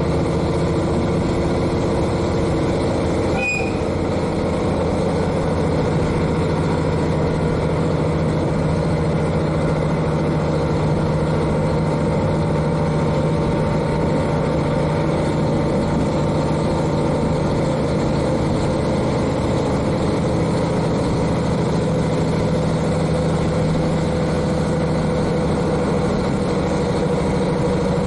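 The underfloor N-DMF13HZI diesel engine of a KiHa 40 railcar, heard from directly above it, running steadily with the train's running noise, and one brief click about three and a half seconds in.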